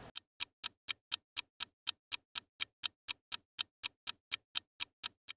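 Clock ticking sound effect, even sharp ticks about four a second with dead silence between, marking a passage of time.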